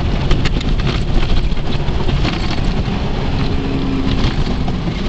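Noise inside a vehicle's cabin while driving on a rough dirt track: the engine and tyres run steadily, with frequent short rattles and knocks from the bumpy surface.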